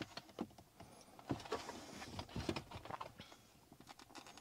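Plastic center-console trim of an Audi A3 8V being handled and worked loose around the gear selector: a run of small clicks, scrapes and rustles, busiest about a second in.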